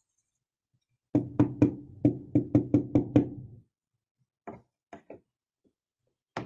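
A marker knocking hard against a small whiteboard in a quick run of about nine strikes, roughly four a second, then a few scattered single knocks as the board is handled.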